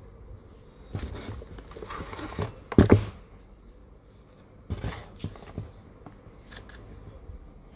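Handling noise of a DeWalt DWD024 corded percussion drill being turned over and shifted against its cardboard box: scattered scrapes, rustles and knocks, the loudest knock about three seconds in. The motor is not running.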